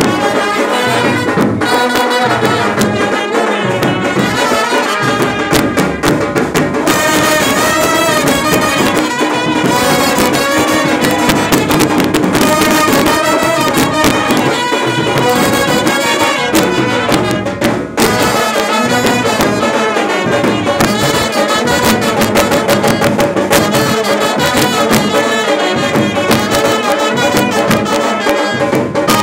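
Brass band playing loudly, trumpets and trombones carrying the tune, with a brief break about eighteen seconds in.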